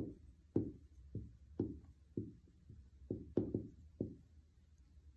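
Someone writing a word on a board: a series of short taps and knocks of the writing tool against the board, roughly two a second.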